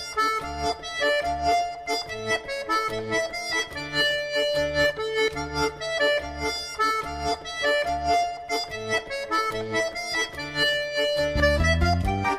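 Accordion music: a lively dance tune with sustained melody notes over a steady, pulsing bass.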